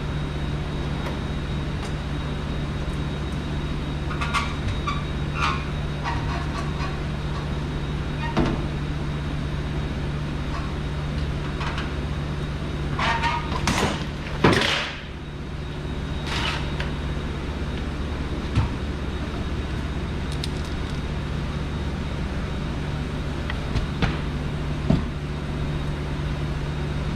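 Scattered metal clicks, knocks and scrapes of tools and hardware as a worn Peterbilt 359 door hinge is taken off, louder for a moment about halfway, over a steady low machine hum.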